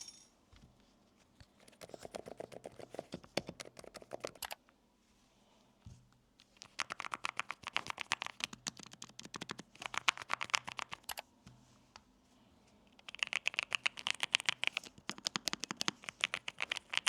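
Typing on a low-profile mechanical keyboard: three runs of quick, even key clicks with short pauses between them. The first run sounds deeper than the other two.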